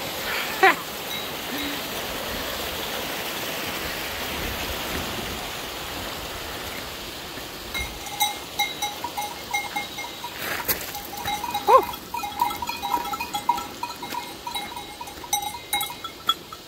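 A mountain stream rushing steadily, giving way about eight seconds in to the irregular clanking of a bell on a sheep's collar as a small flock of sheep walks close by; a sheep bleats once about twelve seconds in.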